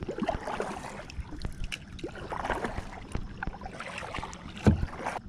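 Kayak paddle strokes: the blades dip and pull through calm lake water with splashes and drips, swelling with each stroke. A single sharp knock sounds near the end.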